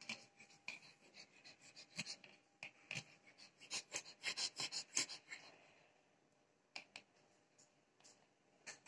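Small dog (Pomeranian) panting, with quick irregular clicks that are densest and loudest about four to five seconds in.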